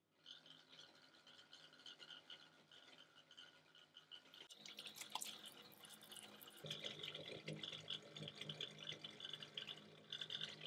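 Water running from a bathroom tap into a sink while hands are washed under it, getting louder about halfway through.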